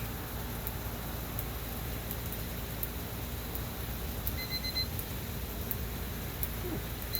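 Steady rain hissing, with scattered drops ticking. About four and a half seconds in, an electronic device gives a few quick high beeps.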